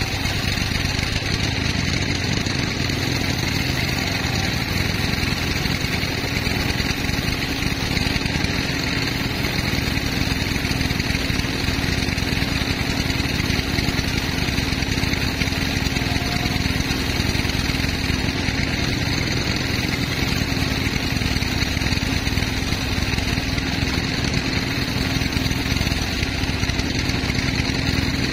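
Sawmill machinery running steadily: a constant engine-like drone with a high hiss, holding the same pitch and level throughout.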